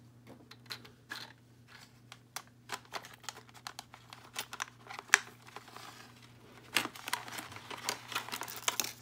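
Clear plastic blister packaging crinkling and crackling in the hands as a small toy figure and armchair are worked out of it, with irregular clicks and one sharp snap about five seconds in.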